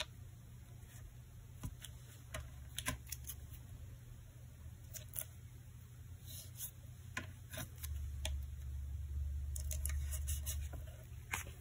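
Faint scattered clicks and short rustles of hands handling a thin metal cutting die, cardstock and washi tape on a craft mat, over a low steady hum that grows louder for a few seconds near the end.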